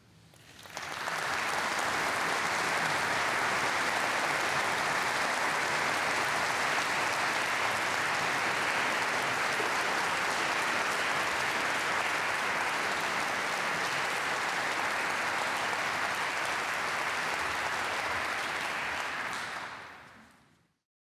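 Audience applauding: the applause swells in during the first second, holds steady, and fades away near the end.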